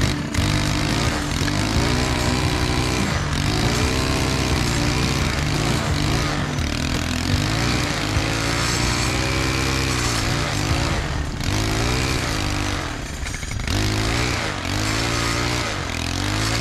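Stihl brushcutter with a saw blade running at high throttle while cutting into tall brush. Its engine pitch rises and falls every second or two as the blade bites and frees.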